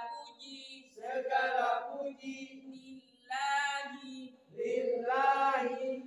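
Group of voices chanting Qur'an verses aloud together in a memorisation drill, in short phrases with brief pauses between them.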